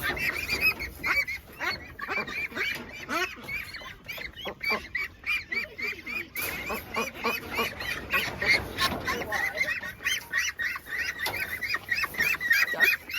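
A flock of ducks calling without pause, many short rising-and-falling calls overlapping several times a second.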